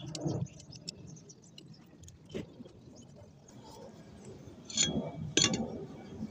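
Scattered light metallic clicks and taps of tools and small metal parts being handled, with two sharper knocks near the end, about half a second apart.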